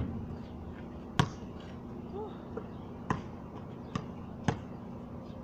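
A basketball bouncing on a concrete court: about five sharp, irregularly spaced thuds.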